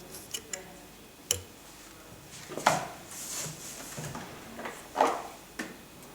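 Handling noise from a Samsung vacuum cleaner's plastic body and parts: a few light clicks, then two louder knocks a couple of seconds apart with a short rustle between them. The motor is not running.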